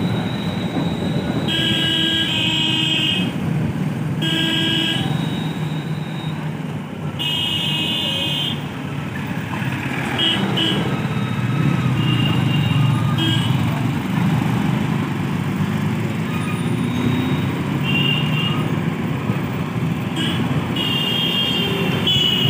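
Street traffic heard from a moving vehicle: a steady engine and road rumble, with vehicle horns honking in short bursts about seven times.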